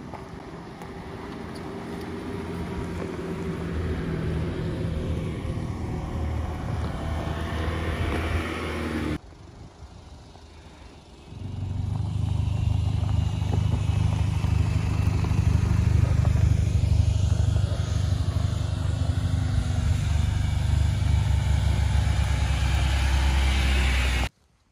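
4WD vehicle engine running as it drives on a dirt track, getting louder over the first several seconds. About nine seconds in the sound drops off sharply. From about eleven seconds a louder, steady low engine drone takes over and cuts off abruptly near the end.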